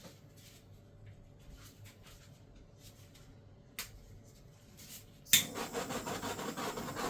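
Small hand-held butane torch: a click a little before four seconds in, then the torch lights with a sharp pop about five seconds in and its flame hisses steadily.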